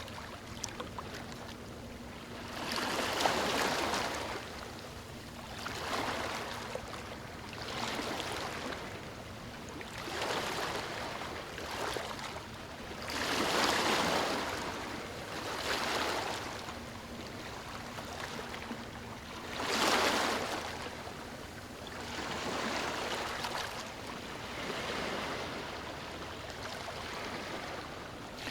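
Small ocean waves washing onto a beach, a rush of surf swelling and fading every few seconds, the strongest ones a few seconds in, about halfway through and about two-thirds of the way through.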